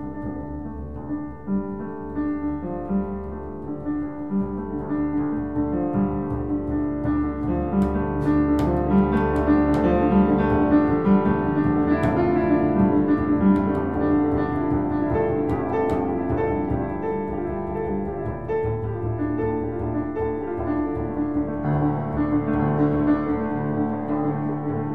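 Piano and bowed double bass playing an improvised duet: many piano notes over held, low bowed bass tones, growing louder through the middle.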